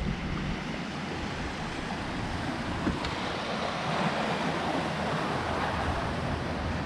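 Small sea waves breaking and washing over a pebble shore, the wash swelling about four seconds in and easing off. Wind buffets the microphone underneath.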